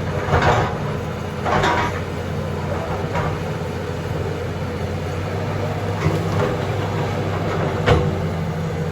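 John Deere backhoe's diesel engine running steadily, with several short bursts of noise on top of it.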